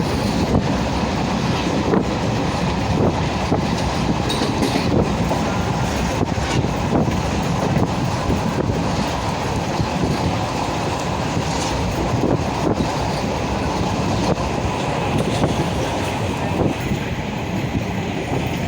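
Moving train: a steady rumble of wheels on track, with irregular sharp clicks from the rail joints.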